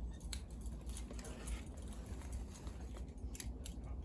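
A low, steady rumble with scattered light clicks and clinks.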